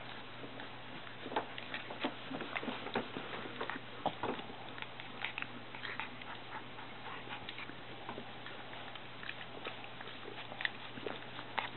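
Golden retriever puppies playing and mouthing each other: scattered short clicks and scuffling noises, busiest in the first half, over a steady low hum.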